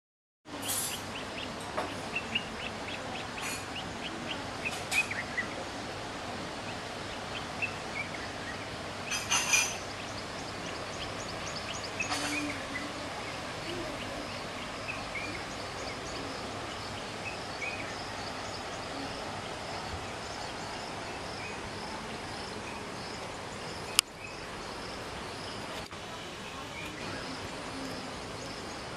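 Outdoor bush ambience: birds calling in short falling series of chirps, joined about halfway through by a steady high insect trill. A few knocks and clicks stand out, the loudest a single sharp click about 24 seconds in.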